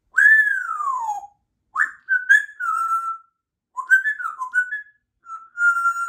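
Congo African grey parrot whistling: one long falling whistle about a second long, then three shorter phrases of gliding whistled notes, the last ending on a held note.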